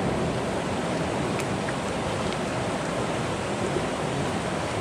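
Steady rushing of a river flowing over stones.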